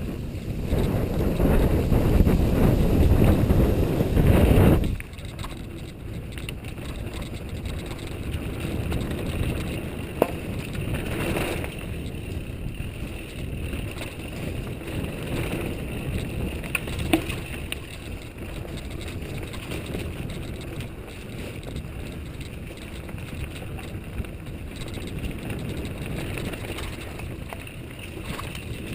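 Mountain bike riding a dirt trail: tyres rolling with the frame rattling and small knocks, and wind rumbling on the microphone, loudest for the first five seconds and then dropping suddenly.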